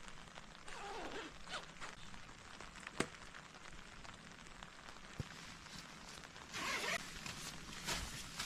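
Rustling, swishing handling sounds, twice, with two sharp clicks, over a steady background hiss.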